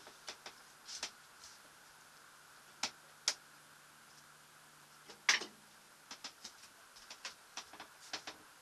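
Scattered light clicks and knocks, with two sharper ones about three seconds in and a louder knock with a short ring about five seconds in, then a run of small ticks near the end, over a faint steady low hum.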